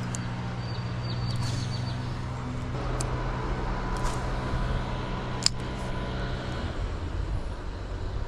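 A motor vehicle engine running with a steady low hum, which stops about a second and a half before the end, with a few sharp clicks over it.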